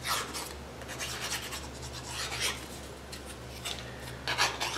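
Intermittent scratchy rubbing as Foam-Tac glue is worked onto a small black part by hand, with the tube's nozzle and fingers scraping against it. There are louder scrapes just after the start, near the middle and near the end, over a faint steady low hum.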